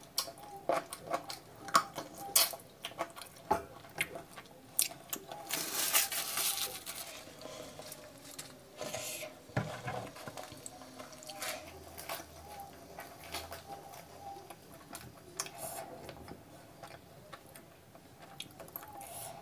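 Close-miked eating: wet chewing and sharp mouth clicks while eating chicken curry and fried puri by hand, with louder crackling as the crisp, puffed puri is torn apart.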